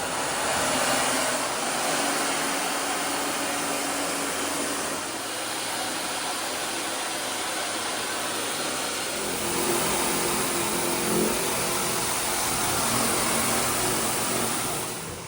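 Steam-cleaning machine running with a spinning scrub attachment working the stone: a steady loud hiss over a motor hum that shifts in pitch a few times.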